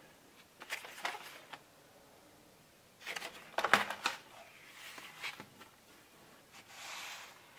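Handling of a cardboard Blu-ray box set and its fold-out disc case: scattered light clicks and rubbing, a cluster of sharp clicks and knocks about three seconds in, then soft rustling of card as the case is opened out.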